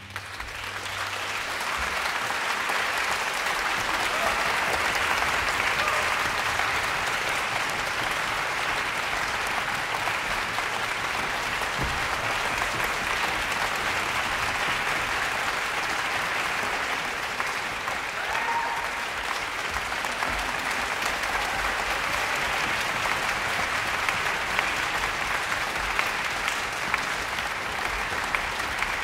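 Large audience applauding: a dense, steady clapping that swells up over the first two seconds and then holds.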